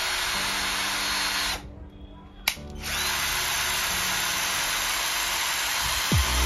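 A KPT KDD12V 12-volt cordless drill running unloaded with an empty chuck, a steady motor whine. It stops about a second and a half in, there is a sharp click, and it starts up again a second later and keeps running.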